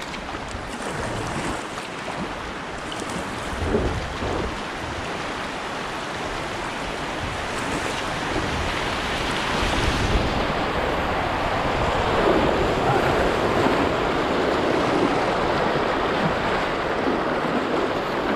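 River rapids rushing and splashing around a kayak, louder about halfway through as the kayak runs through whitewater.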